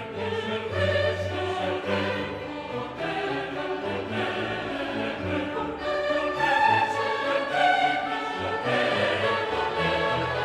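Background music with a choir singing over an orchestral accompaniment.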